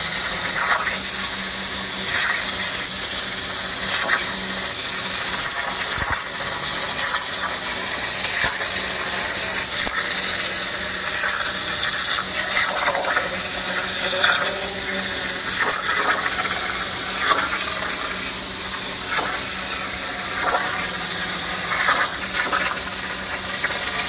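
CNC plasma torch cutting steel plate over a filled water table: a loud, steady, high-pitched hiss of the arc and cutting air, with a faint low hum beneath and occasional crackles.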